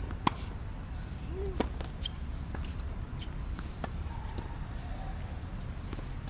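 A few sharp, separate knocks of a tennis ball on the hard court. The loudest comes just after the start and another about a second and a half in, over a steady low rumble.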